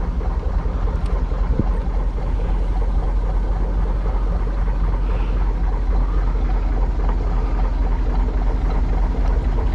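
A canal boat's diesel engine idling steadily, a low even rumble.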